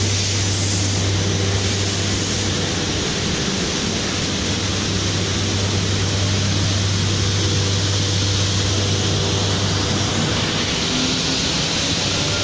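Biesse Rover C 6.50 CNC machining centre at work on a panel: a steady, loud rushing noise of the spindle and dust extraction over a deep hum, with a faint rising whine near the end.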